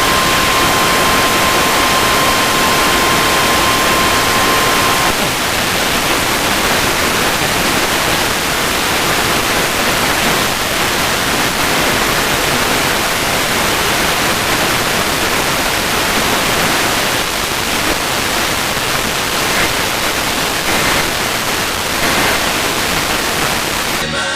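Loud, steady static hiss from a radio receiving a weak or noisy signal. A steady tone sounds under the hiss and cuts off about five seconds in.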